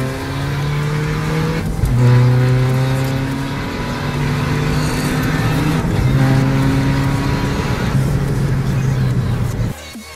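Tuned Seat Ibiza Cupra 1.9 TDI diesel engine under hard acceleration, heard from inside the cabin, its pitch climbing steadily through each gear with short breaks at the gear changes about two and six seconds in. The sound cuts off abruptly just before the end.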